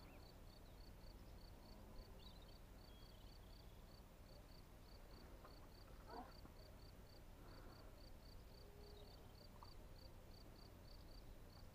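Near silence with a faint cricket chirping high at an even pace, about three chirps a second.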